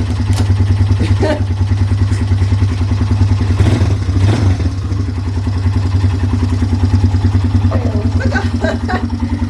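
A 2005 Polaris Phoenix 200 quad's small single-cylinder four-stroke engine idling steadily, left running to warm the oil before an oil change.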